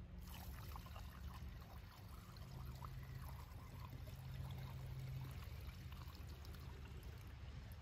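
Two-stroke fuel mix poured from a glass jar through a plastic funnel into a chainsaw's fuel tank: a faint, steady trickle.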